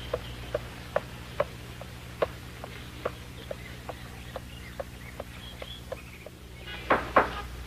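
Footsteps of a man walking on a paved lane, a little over two steps a second, over a steady low hum. Two louder short sounds come near the end.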